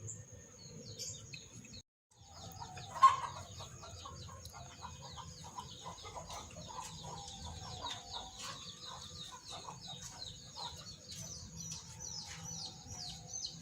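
Chickens clucking and small birds chirping in rapid, short falling cheeps, over a steady high-pitched whine. There is one sharp click about three seconds in, and the sound drops out briefly just before it.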